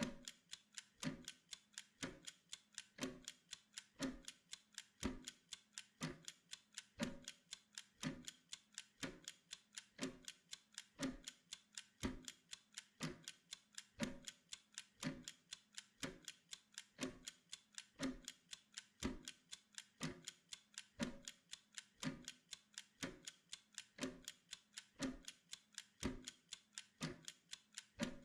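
Mechanical ticking of a Pomodoro timer: a steady, even train of sharp ticks, about two stronger ticks a second with fainter clicks between them.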